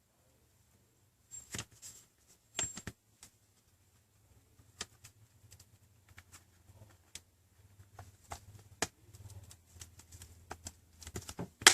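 Light clicks and taps of a Samsung Galaxy Tab's plastic rear housing being handled and fitted onto the tablet. They start about a second in, come scattered at first, and grow more frequent near the end as the housing is pressed toward clicking into place.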